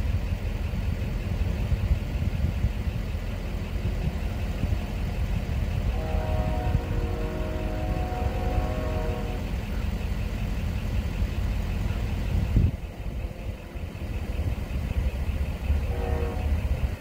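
Horn of the approaching BNSF train's locomotive, out of sight, sounding a long chord from about six seconds in to about nine, then a short blast near the end, over a steady low rumble. A single thump comes just past the twelve-second mark.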